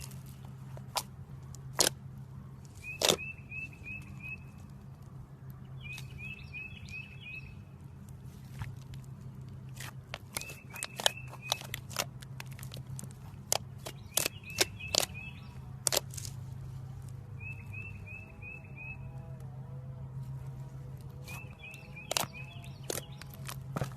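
Slime being handled, giving irregular sharp pops and clicks over a steady low hum. Short runs of high chirps come back every few seconds.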